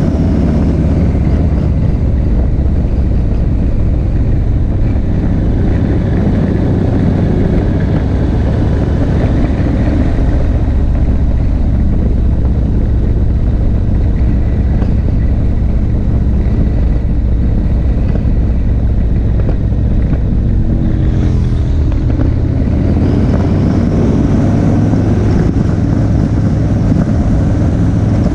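Motorcycle cruising at steady road speed, its engine drone mixed with heavy low wind rumble on the camera microphone.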